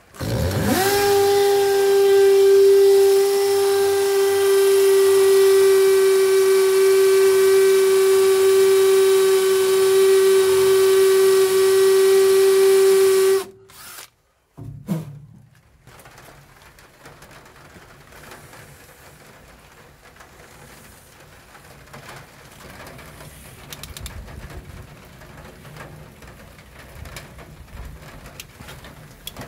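Cordless drill motor winding up within the first second to a steady whine, running for about 13 seconds and then stopping; quieter handling noise follows.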